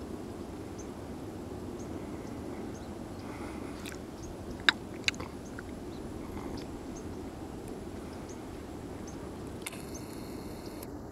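Steady low outdoor background noise, with two sharp clicks about half a second apart near the middle.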